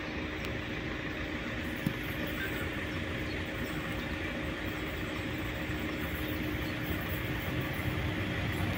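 Two coupled Czech class 753.7 diesel locomotives approaching, not yet close: a steady diesel engine drone with a low rumble that grows slowly louder. A single short click comes about two seconds in.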